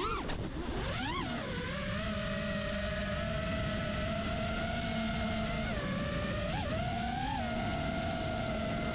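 FPV freestyle quadcopter's brushless motors whining at a steady pitch with wind noise. The pitch swoops down and back up in the first second or so as the throttle changes, then holds with a few brief upward blips near the end.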